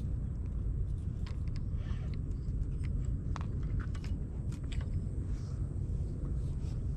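Wind rumbling on the microphone, with a few faint scattered clicks.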